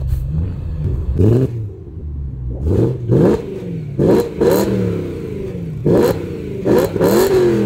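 BMW E92 M3's V8 engine being revved hard in a series of quick throttle blips, about seven or eight, each rising sharply in pitch and falling back.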